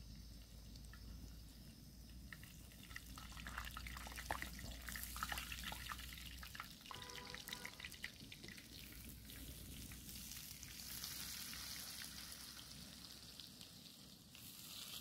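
Batter-coated bread pakora frying on low heat in a kadhai of hot oil. It sizzles faintly, with a run of small crackles and pops in the first half.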